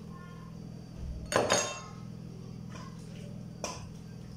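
A metal utensil clinking against a cooking pot: one sharp, ringing clink about a second and a half in and a lighter knock near the end, over a steady low hum.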